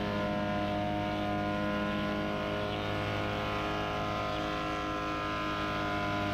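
Gas-powered Generac 3100 PSI pressure washer's engine running steadily at constant speed.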